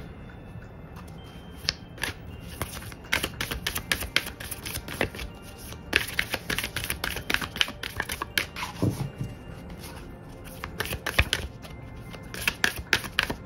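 Tarot cards being shuffled by hand: quick runs of card flicks and slaps that pick up about two seconds in and ease off briefly about two-thirds of the way through.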